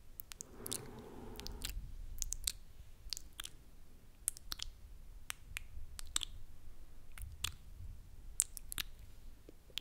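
Close-miked ASMR mouth sounds: wet lip and tongue clicks and smacks, scattered unevenly, made right at the microphone. About half a second in there is a soft breathy rush lasting about a second.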